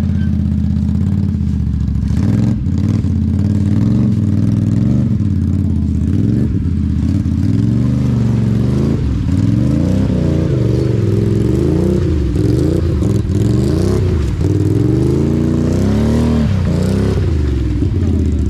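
ATV engine revving as the quad churns through a mud hole with its tyres spinning in the mud. The revs hold fairly steady at first, then rise and fall over and over in the second half.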